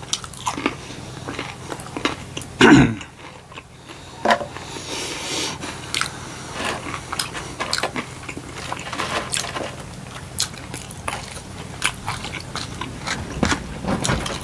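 Close-miked chewing and biting of crunchy fried fast food, a steady run of wet mouth clicks and crunches, with one louder sound about three seconds in.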